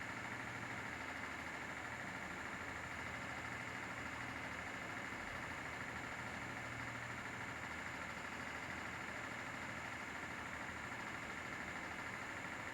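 An engine idling steadily with an even low hum, no change in speed.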